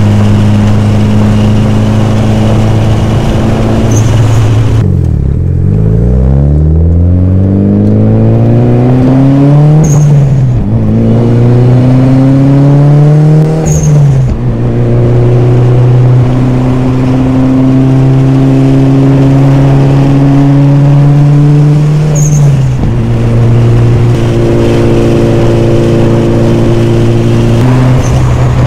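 Mitsubishi Lancer Evolution IX MR's turbocharged 4G63 four-cylinder engine on a drive. Revs drop low about five seconds in, then climb twice through gear changes and settle into a steady cruise, with a brief dip near the end. The engine is running normally on a newly fitted VVT solenoid.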